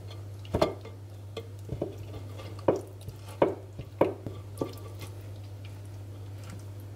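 Raw marinated chicken drumsticks squeezed by hand into a full clay güveç pot: a string of short wet squishes and knocks, mostly in the first five seconds, over a steady low hum.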